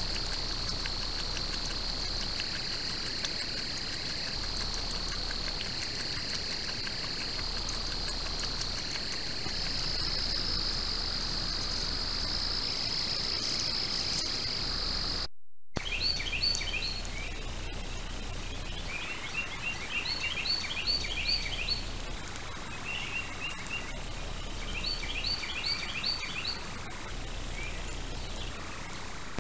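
Night insects trilling steadily at a high pitch. After a break about halfway through, a small songbird chirps in short quick runs of three to five notes, several times.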